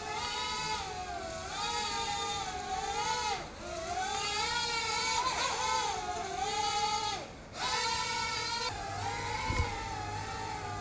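WL Toys Q242G micro quadcopter's motors and propellers whining in flight, the pitch wavering up and down with the throttle, and dropping away briefly twice, about three and a half and seven and a half seconds in.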